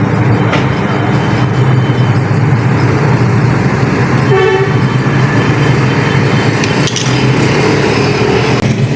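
Steady, loud street traffic, with a short vehicle horn toot about four and a half seconds in.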